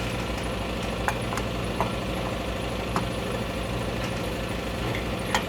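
Steady mechanical hum of a motor running, with a few light metallic clicks over it.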